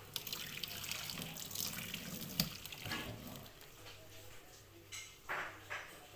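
Parboiling water being poured off a pot of chicken gizzards into a stainless steel sink, splashing for about three seconds and then trailing off, with a few light knocks after.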